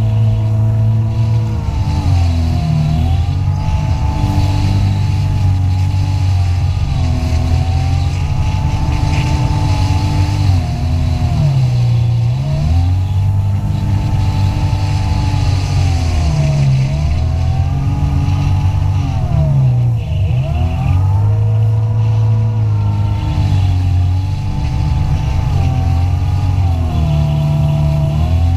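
Jet ski engine running at speed, its pitch dropping and climbing back several times as the throttle is eased off and opened up again, over a steady hiss.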